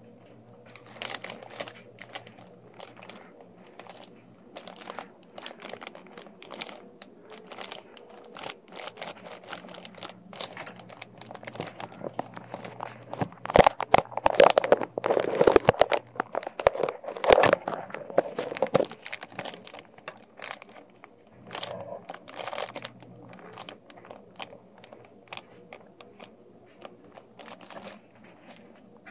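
Plastic sheeting crinkling and rustling with scattered clicks as plastic tubing and fittings are handled, busiest and loudest in a burst around the middle. A faint steady hum runs underneath.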